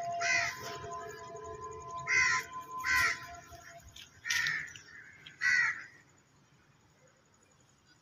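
Crow cawing, about five harsh caws spread over the first six seconds.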